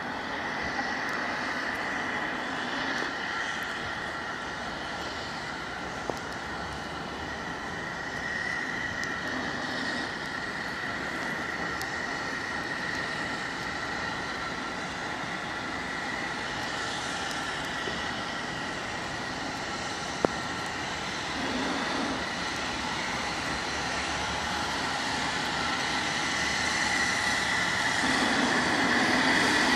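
Passing train, a steady wash of noise with a thin high whine, getting louder over the last few seconds. A single sharp click comes about twenty seconds in.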